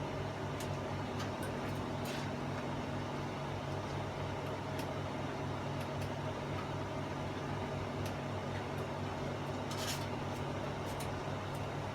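Steady electrical hum with a few faint clicks scattered through it.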